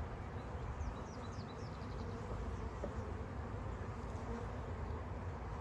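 Honeybees from a package colony buzzing in a steady, massed hum, with a few short, faint high chirps about a second in.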